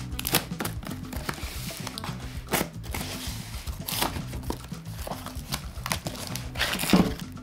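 Plastic wrap crinkling and cardboard flaps rustling as a taped parcel box is unwrapped and opened by hand, with a sharp handling noise about seven seconds in, over background music.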